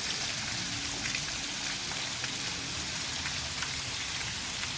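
Steady hiss of rushing water, with faint scattered ticks mixed in.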